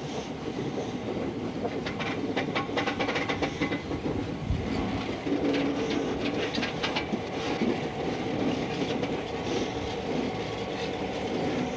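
Cold, dead CN 5700 Hudson steam locomotive, tender and baggage car rolling slowly past, pushed by a diesel locomotive rather than under steam. The wheels click over the rail joints in two clusters, about two seconds in and again about six seconds in, over a steady low engine drone from the pushing diesel.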